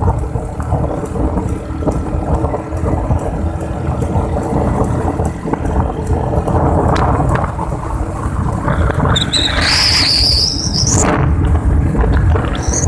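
Steady rumble and hum of a moving vehicle, with road and wind noise. About nine seconds in, a high squeal rises in pitch for about two seconds, and a second short high squeal comes near the end.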